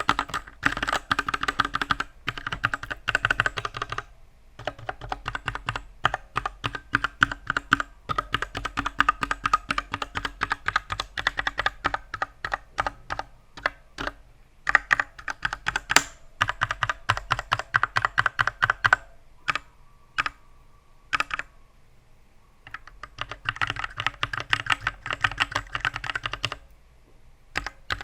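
Typing on an RK84 Pro mechanical keyboard with stock, unlubricated RK red linear switches in a metal case: fast runs of key clacks with short pauses. A little after the middle there is a sparser stretch of only a few presses.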